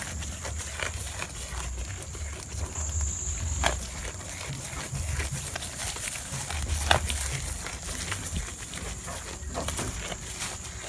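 Goats tearing and chewing fresh awar-awar (Ficus septica) leaves close to the microphone: irregular rustling and crunching, with a few sharp snaps, the loudest a little after a third of the way and about two-thirds in, over a low handling rumble.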